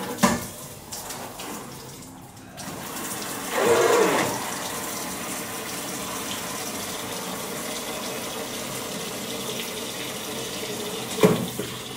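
Kitchen mixer tap running steadily into a stainless sink and over a mesh strainer of noodles being rinsed under cold water. The water comes on about two and a half seconds in and is loudest for a moment just after. A sharp knock comes just after the start and another near the end.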